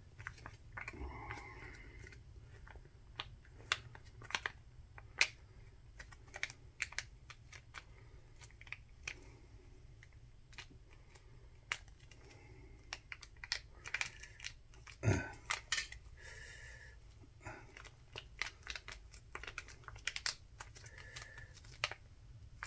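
Eating sounds close to the microphone: scattered light clicks and taps, irregular in spacing, with one louder knock about fifteen seconds in.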